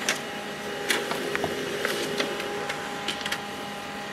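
HP LaserJet M139we laser printer printing and feeding out its welcome page: a steady motor whir with scattered sharp clicks from the paper mechanism.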